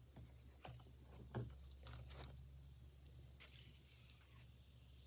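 Faint scrapes and light clicks of a tool scooping Bondo body filler out of its can onto wood, a few scattered strokes over a low steady hum.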